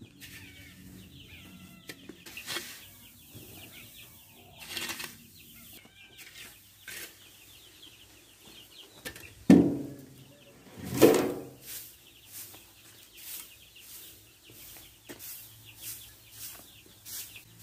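Shovel scraping and turning a heap of carbonizing rice hull, then a broom brushing across the pile in quick repeated strokes: the last stirring of the charring hulls. Two louder thumps about nine and eleven seconds in.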